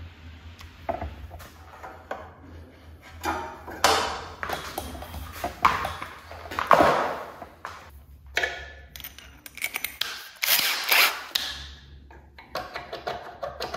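Irregular clicks, knocks and clatter of hands handling a power cord, a plug and tools, with the loudest knocks in the middle stretch.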